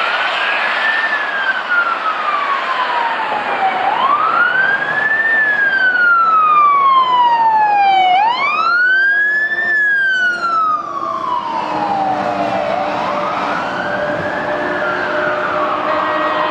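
Fire engine's siren sounding a slow wail: each cycle rises quickly in pitch over about a second and falls slowly over about three, repeating four times, over the noise of road traffic. A steady lower tone comes in about two-thirds of the way through.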